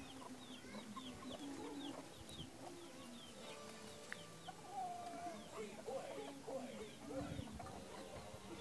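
Chickens clucking, with a steady string of short, high peeping calls running through.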